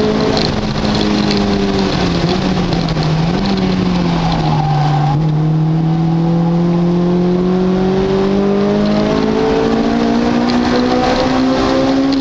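Car engine being driven on a race circuit. The revs fall over the first five seconds as it slows, then rise slowly and steadily through the second half as it accelerates again, over steady road and wind noise.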